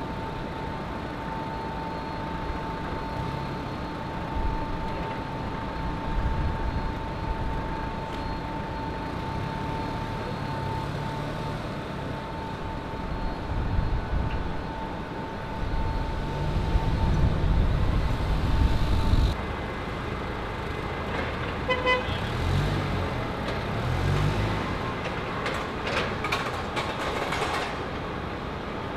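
Heavy cargo-handling machinery at a pier: low engine rumble that swells and fades, under a steady high whine. The sound then changes abruptly to a different work ambience, with a short beep a few seconds later and some metallic clatter near the end.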